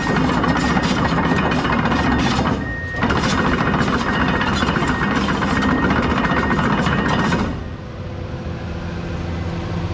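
Komatsu PC210LC-11 excavator working: dense clanking and rattling from its steel tracks and hydraulics over the diesel engine, with a short lull near three seconds in. The clatter stops about seven and a half seconds in, leaving the engine running steadily.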